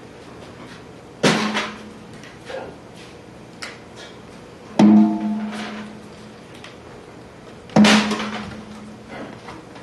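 Hand-played frame drum: three sharp, ringing strokes about three seconds apart, each leaving a low drum tone that fades, with a few lighter taps between them.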